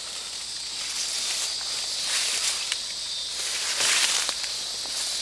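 Rustling and crackling of leafy pepper plants being brushed and handled, over a steady high hiss.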